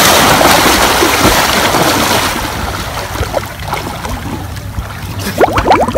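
Water splashing and churning as people swim and thrash through a pond, loud at first and dying down after about two seconds to quieter sloshing, with a few short splashes near the end.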